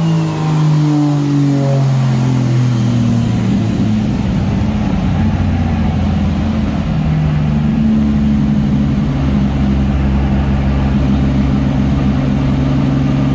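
Turbocharged JZ inline-six engine in a Nissan S13 running on a chassis dyno: the revs fall away over the first few seconds, then the engine holds a steady speed from about seven seconds in.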